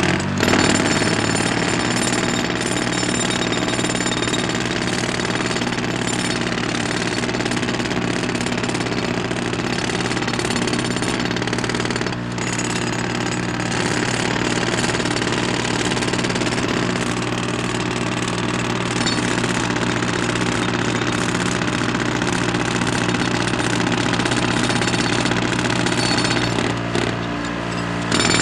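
Construction breaker hammering rapidly and continuously, jackhammer-style, over a steady low drone. The hammering eases briefly about twelve seconds in and again shortly before the end.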